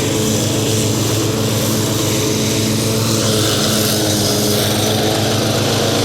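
Craftsman lawn mower engine running steadily at an even speed while mowing grass.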